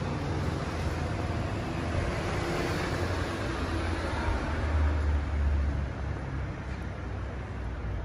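Street traffic: a steady rumble of road vehicles, with one vehicle going by and swelling louder about halfway through.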